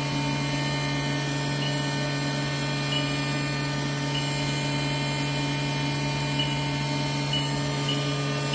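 Haas VF-2SS vertical machining center's 12,000 RPM spindle running at a steady 8,500 RPM: an even, constant hum.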